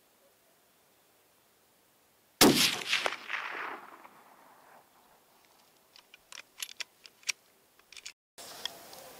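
A single rifle shot fired at a coyote, sudden and loud, its report rolling away over about a second and a half. A few sharp clicks follow a few seconds later.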